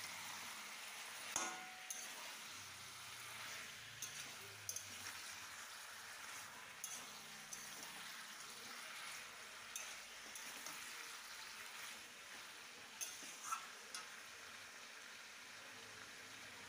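Chicken and onions sizzling in oil in a kadai, stirred with a metal spatula that knocks and scrapes against the pan now and then, with a few sharper clinks close together near the end.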